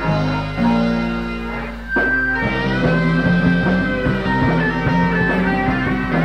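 Rock band recording with electric guitar and bass, the drums and full band coming in about two seconds in.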